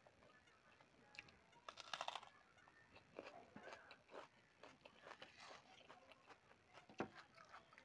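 Faint eating sounds: chewing and mouth smacks mixed with soft clicks of fingers working rice and chicken curry on a metal plate, the clearest about two seconds in.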